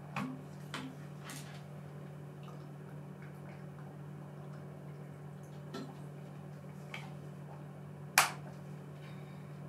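A person drinking water during a pause in a lecture: a few small clicks and handling noises, with one sharp click near the end, over a steady low electrical hum.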